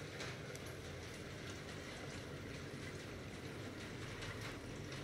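Aquarium aeration bubbling: a steady fizz of air bubbles breaking at the water surface, with faint scattered pops over a low steady hum.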